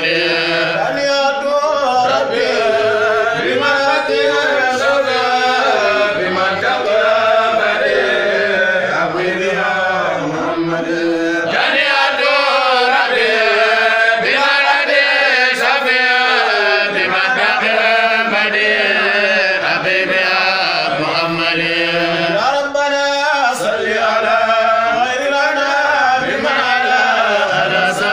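A group of men's voices chanting an Arabic devotional poem together in long, drawn-out melodic lines.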